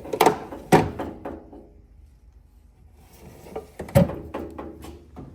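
Metal tool chest drawers sliding and shutting: a couple of clunks about a second in, then another hard clunk about four seconds in.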